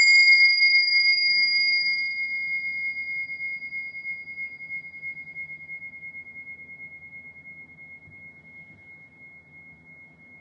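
A bell struck once, ringing with one clear high tone that fades slowly away over about ten seconds, marking the close of the mindfulness exercise.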